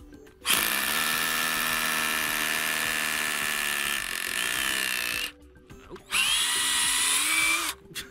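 Ryobi 18V ONE+ cordless drill boring into a block of concrete with a masonry bit. It runs for about five seconds, stops briefly, then runs again for about two seconds.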